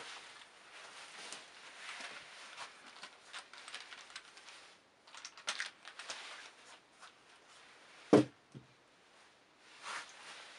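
Rustling and light handling noise of shoes being moved about on a table, with a cluster of small clicks near the middle. About eight seconds in comes one sharp thump and a softer one half a second later: a pair of heeled sandals set down one shoe after the other.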